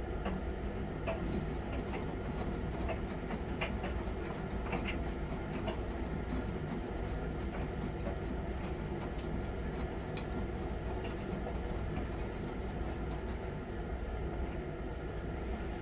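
Miele Novotronic W921 front-loading washing machine running mid-cycle: a steady low hum and rumble with scattered light clicks and knocks.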